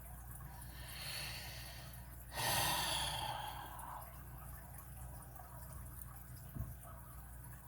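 A person breathing in, then letting out a long, forceful exhale about two and a half seconds in, fading over a second or so; a single light click near the end.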